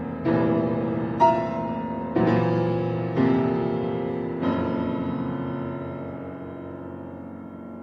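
Solo piano playing slow chords, struck about once a second, five in all; the last chord is held and left to ring, fading away.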